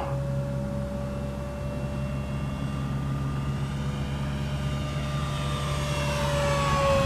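Electric motor and propeller of an FMS Cessna 182 1.5 m RC plane at full throttle, a steady whine. It grows louder toward the end, then dips slightly in pitch as the plane passes.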